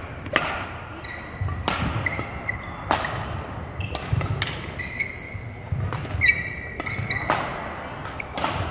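Badminton rally: racket strings smacking the shuttlecock about once a second, each hit followed by a brief echo, with short high squeaks of court shoes on the floor between shots.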